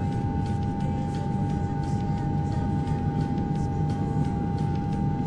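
Steady machine hum with a low rumble and a constant high whine, with faint scattered ticks: the soundtrack of operating-room footage of an eye worm being surgically removed.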